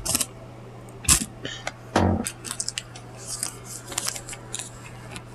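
Close-up eating sounds from someone eating fried chicken: irregular crisp crunches, wet mouth smacks and small clicks, over a steady low hum.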